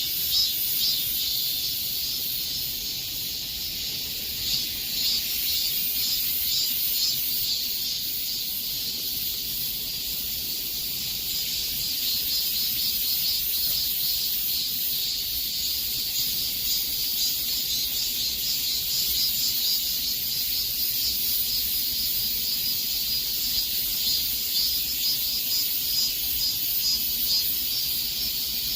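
Summer cicadas singing in chorus: a continuous, high-pitched shrill drone with a fast, fine pulsing texture and no breaks.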